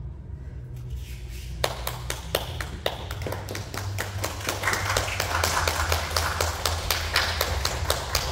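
Applause from a small group of spectators: a few scattered claps about a second and a half in, thickening into steady clapping from about the middle on.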